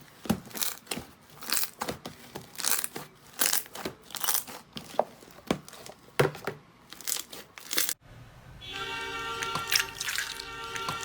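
Slime being squeezed and pressed by hand, giving a quick irregular series of crackling, popping sounds. About eight seconds in, soft background music comes in under the crackling.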